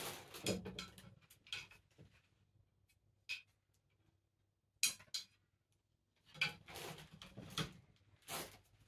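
Off-camera handling noises: scattered knocks, clicks and rustles. There are two sharp knocks about five seconds in, then a cluster of rustling and clicks near the end.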